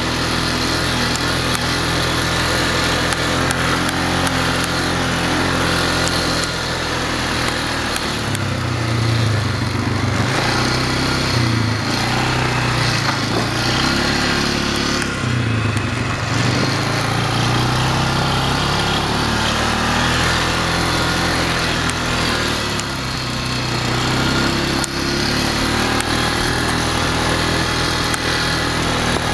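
Polaris Sportsman 500 ATV's single-cylinder four-stroke engine running while the quad is ridden, heard from on board. The pitch holds steady at first, then rises and falls again and again from about eight seconds in as the throttle is worked over the trail.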